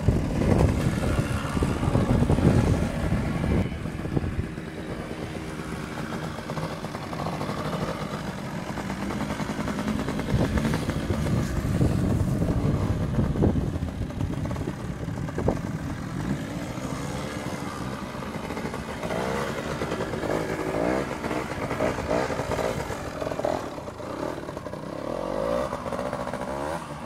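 Small trials motorcycle engine running at low revs, with short blips of the throttle that rise and fall in pitch as the bike is ridden slowly over obstacles.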